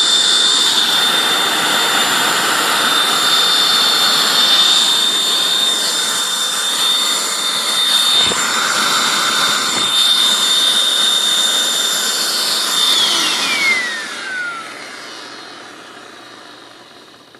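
Hoover WindTunnel self-propelled upright vacuum cleaner running with a steady high whine over a rushing air sound, a motor the owner says is burned out. Two short knocks come near the middle, and about thirteen seconds in it is switched off and the whine falls away as the motor spins down.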